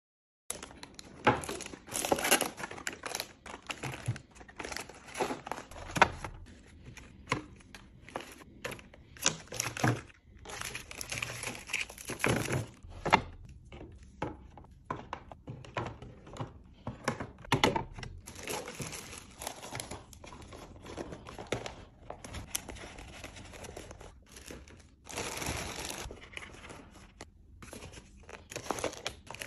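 Plastic packaging crinkling and tearing, with irregular knocks and clicks of containers and items being handled and set down while a fridge is restocked.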